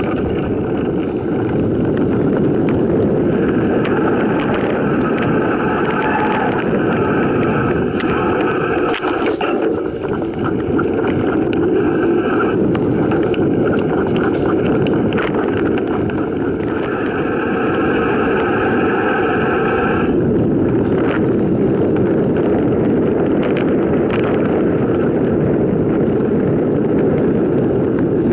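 Mountain bike descending a dirt singletrack: steady wind rush on the microphone and tyre rumble, with rattling knocks over bumps and a higher whirring that comes and goes.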